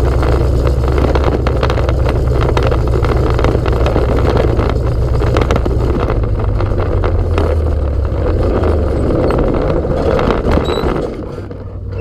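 Sprint car's V8 engine running steadily at low speed with the car rolling slowly, a loud, rough low-pitched sound; it falls away sharply about eleven seconds in.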